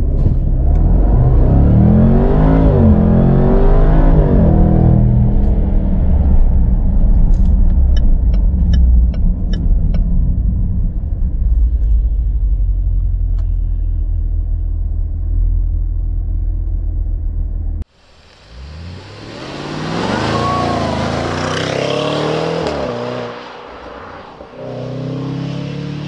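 Jaguar F-Pace SVR's supercharged 5.0 V8 under hard acceleration, heard from inside the cabin as a loud low drone whose pitch climbs and drops back at the gear changes. After a sudden cut, the same engine is heard from the roadside, rising in pitch through the gears as the car accelerates toward the camera.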